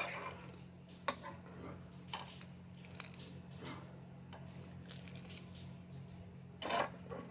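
A steel spoon stirring thick, simmering milk and vermicelli in a pan, clicking and scraping against the pan about once a second, with a longer scrape near the end, over a steady low hum.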